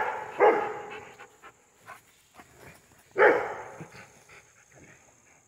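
One-year-old Rottweiler giving excited play barks: two barks in quick succession, then a third about three seconds later.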